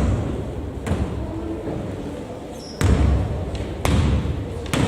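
Basketball bouncing on a gym floor, about five irregularly spaced bounces that ring briefly in the hall.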